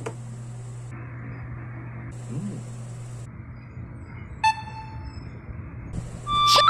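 Steady low hum with a single short electronic beep about four and a half seconds in; a click and the first notes of music come right at the end.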